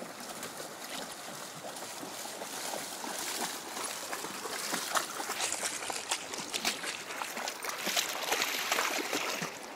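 Two dogs wading and splashing through a shallow, rocky river, over the steady rush of the flowing water. The splashing gets louder and closer about three seconds in.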